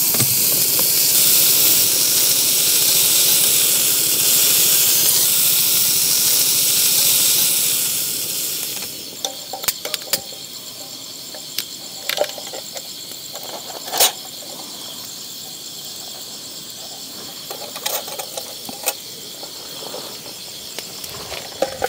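Loud steady hiss of food sizzling on a hot iron griddle, which fades out about eight seconds in. Then a few sharp clicks and knocks over faint, steady insect chirring.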